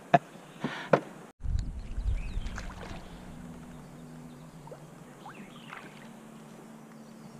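A brief low rumble from the canoe about a second and a half in, then a faint steady hum with a few faint high chirps, likely birds.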